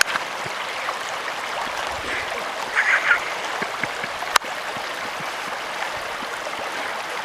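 River water rushing steadily over a streambed. A brief higher-pitched sound comes about three seconds in, and a single sharp click about four and a half seconds in.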